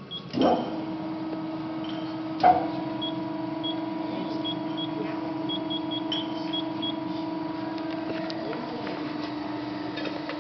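Amada Promecam CNC guillotine shear starting up with a clunk and running with a steady machine hum; a second clunk about two and a half seconds in adds a higher hum. Short electronic beeps sound a few times as the control-panel keys are pressed.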